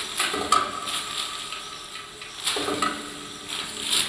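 Clatter of dishes and cutlery: scattered clinks and knocks, with short ringing notes about half a second in and again around two and a half seconds in.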